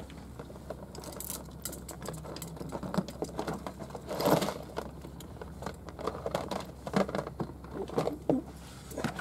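Handling noises of a young Spanish mackerel held in a plastic fish-grip tool: scattered small clicks and rattles, with a louder rustling scuffle about four seconds in.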